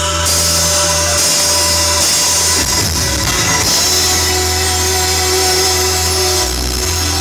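Live reggae band playing, with a steady bass line under sustained keyboard and horn notes; the bass drops out briefly about three seconds in.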